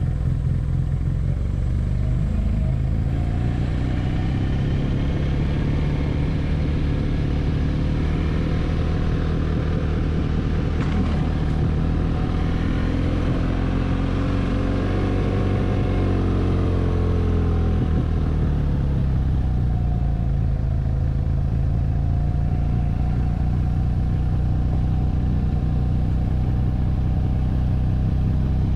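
BMW R nineT's 1170 cc boxer twin running under way on a ride, a steady engine note whose pitch falls and then rises again about halfway through.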